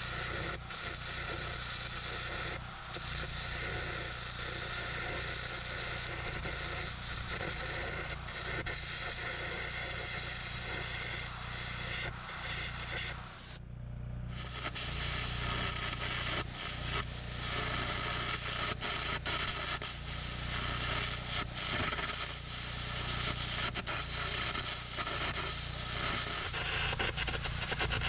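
Air carbon arc gouging: the arc crackles and hisses steadily as it cuts old welds off a loader bucket's ears, over a steady low hum. It cuts out briefly about halfway through, then carries on.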